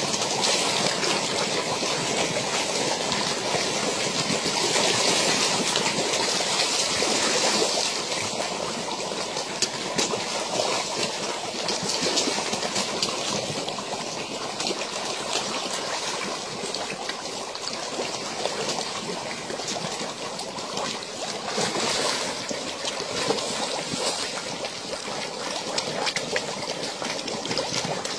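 Water splashing and slurping as a dense shoal of carp churns and feeds at the surface, with many small overlapping splashes and gulps, a little busier in the first few seconds.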